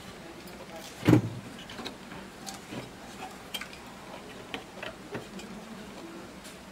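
Circuit boards and wiring being handled on a workbench: scattered light clicks and knocks, with one louder thump about a second in.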